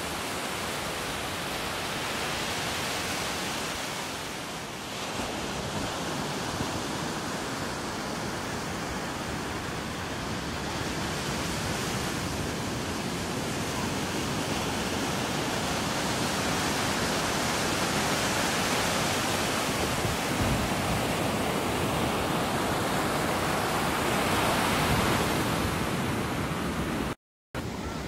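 Ocean surf breaking on a sandy beach: a steady roar of waves that swells and eases slowly, cutting out for a moment near the end.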